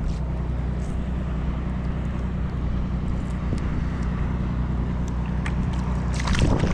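Boat's motor idling steadily under small clicks of a striped bass being unhooked by hand. About six seconds in, a short louder splash as the fish is released back into the water.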